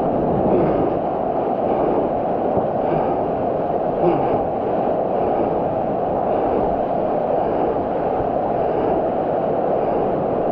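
Steady, muffled rush of wind and surf water on the microphone of a POV surf camera.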